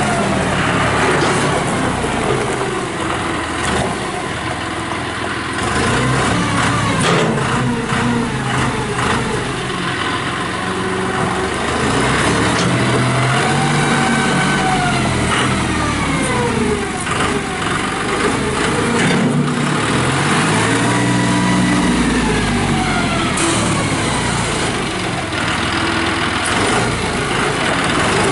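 John Deere 5045D tractor's turbo diesel engine running under the operator's hand, its speed rising and falling several times.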